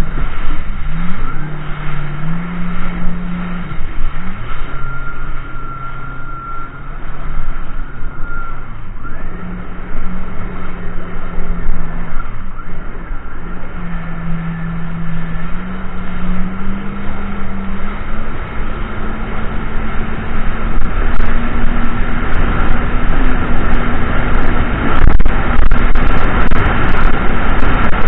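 Jet ski engine running under way, its pitch stepping up and down with the throttle and then climbing steadily through the second half, over the rush of water and spray against the hull.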